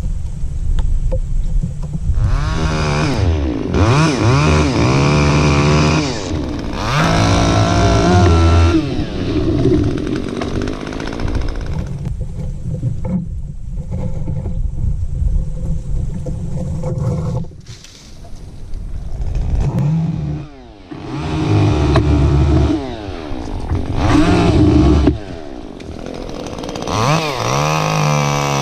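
Two-stroke chainsaw running with its revs rising and falling again and again, typical of cutting storm-damaged wood. The engine drops back briefly twice near the middle before revving up again.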